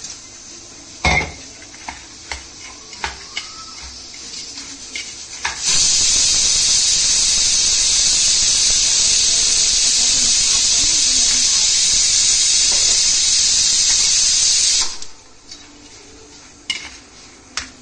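Steel spoon clinking and scraping in a steel bowl while stirring powdered sugar into a dry coriander-seed and dry-fruit mixture. About six seconds in, a loud steady hiss from an unseen source starts suddenly, covers the stirring for about nine seconds, and cuts off abruptly.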